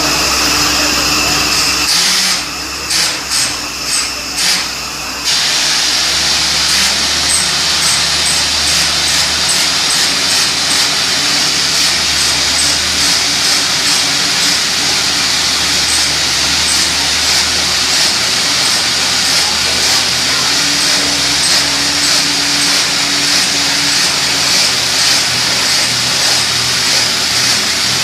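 Borewell drilling rig running: a loud, steady machine noise with a strong hiss. The noise drops away briefly about four times, a couple of seconds in, then carries on steadily.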